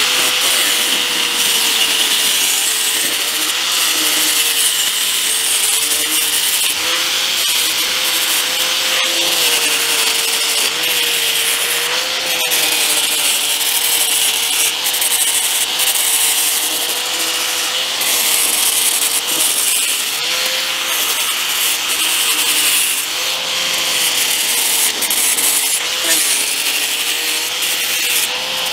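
Angle grinder with a 60-grit flap disc sanding the edge of a clear plastic motorcycle windshield, running steadily throughout with its motor pitch wavering slightly.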